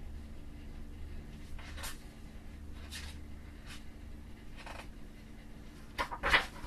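Paper and card items being handled and shuffled: soft rustling strokes about a second apart, then a sharper cluster of clicks and knocks near the end, over a low steady hum.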